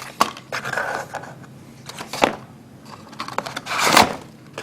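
Handling noise from a Smith & Wesson M&P 15-22 rifle as its 25-round magazine is taken out: several sharp clicks and rattles, with a louder scrape about four seconds in.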